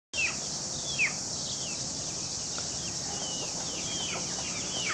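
Birds calling in leafy countryside: many short chirps that fall in pitch, two louder ones within the first second, over a steady high-pitched hiss.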